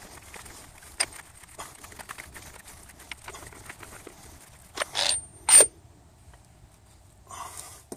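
Steel adapter cups and parts of a hydraulic bearing-puller setup being handled and taken apart: light clicks and scrapes, then two loud metal-on-metal clinks that ring, about five seconds in.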